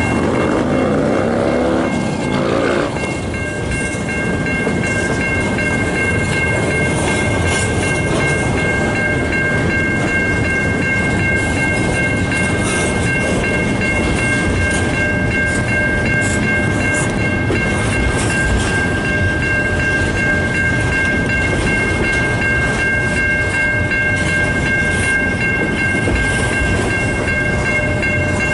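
Freight train rolling past a road crossing: a steady, loud rumble of wheels on rail, with three high steady tones held throughout and a sweeping whoosh in the first few seconds.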